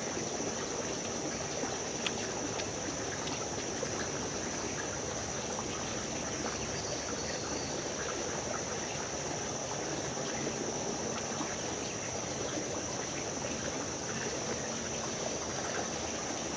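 Creek water running steadily, an even rushing flow with a steady high-pitched tone above it and a faint click about two seconds in.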